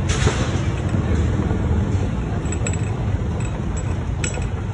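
Open golf-cart-style vehicle running along a gravel farm path: a steady low rumble with a few light ticks and rattles in the second half.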